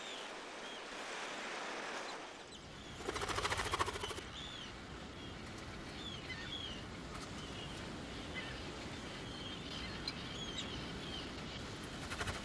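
Tern colony calling: many short, high, arched calls overlapping throughout over a steady rushing background. About three seconds in comes a loud, harsh, buzzy burst lasting about a second.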